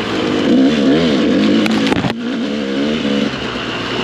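Dirt bike engine revving up and down at low speed, its pitch rising and falling with the throttle over rough ground, with a few sharp clicks about two seconds in.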